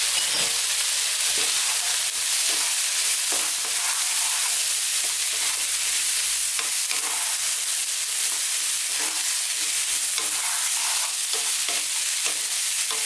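Eggplant and chickpeas sizzling in a frying pan over high heat, a steady hiss, with the irregular scrapes and taps of a wooden spatula stirring them around the pan.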